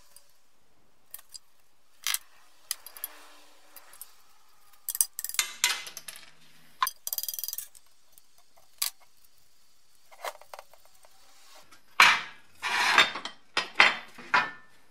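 Loose steel suspension parts and hand tools clinking and clanking against each other and a wooden workbench as a BMW E30 rear trailing arm is taken apart by hand. The knocks are irregular and sharp, some briefly ringing, with the loudest cluster near the end.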